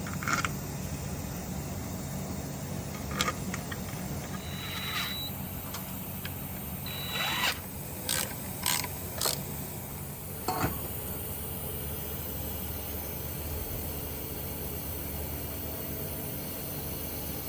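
Scattered metal clinks, scrapes and knocks of hand tools and parts as a valve cover is fitted to a tractor diesel engine: a scrape about seven seconds in, three quick strokes just after, then a sharp knock, over a steady low hum.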